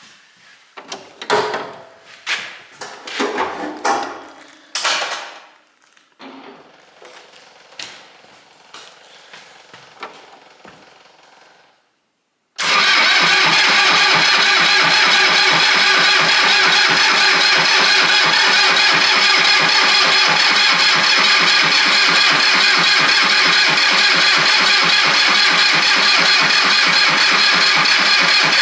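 Scattered knocks and clatter of handling for about twelve seconds, then after a cut a Cub Cadet tractor's diesel engine running loud and steady at close range. The engine is the one that starts hard and needs new glow plugs.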